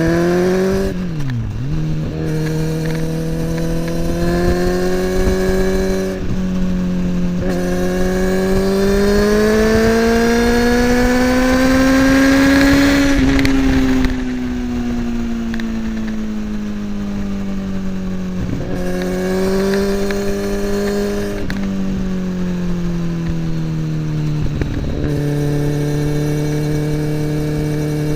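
A Kawasaki ZX-10R's inline-four running through an Akrapovic slip-on exhaust while the bike is ridden. The note falls sharply about a second in, then rises and falls gently with the throttle, with several brief dips along the way.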